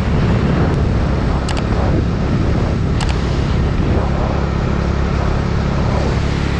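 Bajaj Dominar 250's single-cylinder engine running steadily at cruising speed, about 70 km/h, under heavy wind rush on the microphone.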